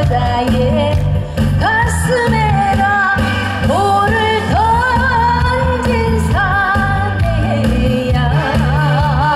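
A woman singing a Korean trot song live into a handheld microphone over an instrumental backing track, with long held notes that waver with vibrato.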